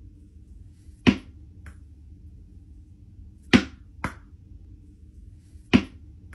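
A tennis ball bouncing on a desk and caught in the hand: a handful of short sharp knocks spaced irregularly, the ones about 1.7 and 4 seconds in fainter, over a low steady room hum.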